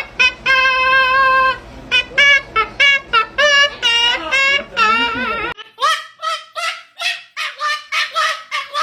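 A pet parrot vocalizing loudly in a rapid string of short, wavering, singing-like calls, with one long held note about half a second in. About five and a half seconds in, the background hum drops out and the calls go on as quicker sliding notes.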